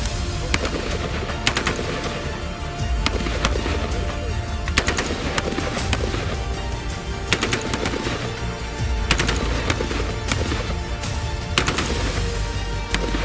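Colt M4 carbine firing 5.56×45 mm NATO rounds: sharp single shots and quick pairs at irregular intervals, roughly one or two a second, over background music with a steady low bass.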